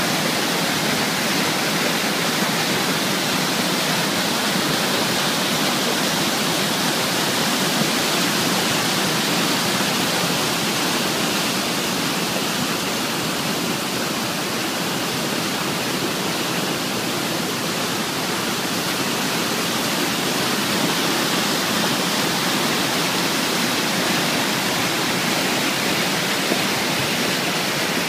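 Barton Creek in flood, its swollen water rushing steadily in an even, unbroken rush of noise.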